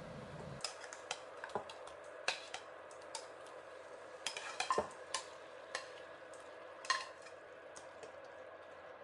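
Raw mutton pieces being spooned from a bowl into a pan of masala: a faint sizzle under scattered metal spoon clinks and soft knocks as the pieces land, busiest about four to five seconds in.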